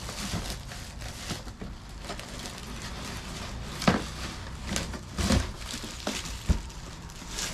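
Packaging rustling and crinkling as parts are unpacked from a box, with a few sharp knocks and clicks from handling.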